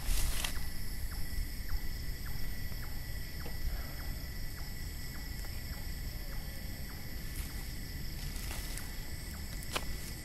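Evening chorus of insects: several steady high-pitched trills with a soft ticking about three times a second, over a low rumble. A short rustle comes right at the start.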